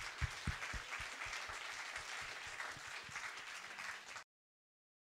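Audience applauding, which cuts off suddenly about four seconds in.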